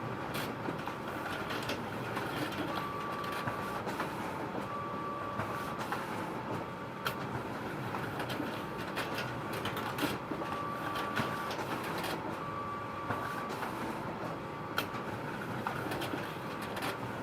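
Photocopier running continuously: a steady mechanical whir with frequent sharp clicks, and a short steady tone that recurs about every two seconds.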